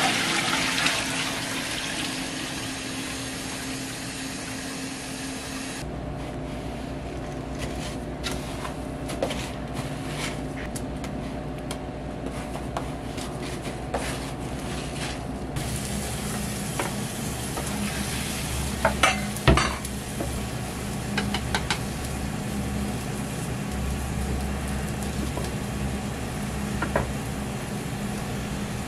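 Restaurant kitchen work in three parts. First liquid is poured from a plastic bucket into a stockpot. About six seconds in, the sound turns quieter, with many small clicks as hands work food through a tray of crumb coating. Later, beaten egg sizzles in a rectangular tamagoyaki pan over a gas flame, with a few sharp knocks near the middle.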